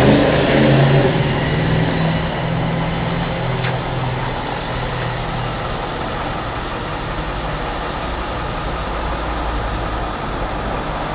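Street traffic: a motor vehicle's engine running with a steady hum that fades over the first couple of seconds, then a steady rumble of traffic.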